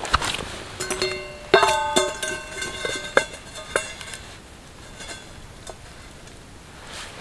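Black frying pan with a folding wire handle set down on a campfire's burning logs and embers. It knocks and clanks several times, and each knock leaves the pan ringing with a bright metallic tone. Fainter clicks follow as it settles.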